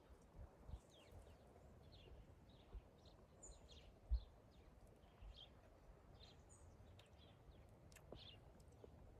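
Faint small-bird chirps, short and falling, repeated throughout, with a few low thuds; the loudest thud comes about four seconds in.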